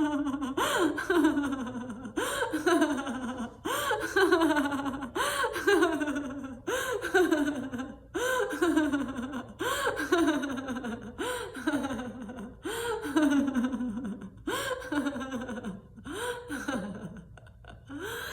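A woman laughing heartily in a laughter-yoga "ho ho, ha ha" exercise: a run of about a dozen bursts of laughter, one every second and a half or so, each one falling in pitch.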